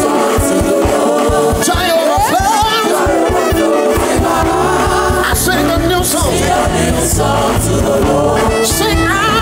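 Gospel praise music: singing voices over a steady beat, with the bass line filling in about four seconds in.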